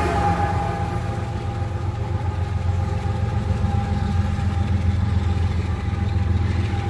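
Diesel freight locomotive running: a steady low rumble with a steady high whine over it.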